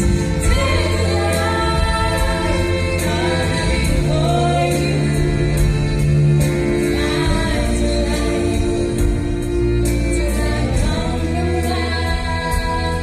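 Live gospel-style song: singing voices with choir-like backing over a band, with a steady beat.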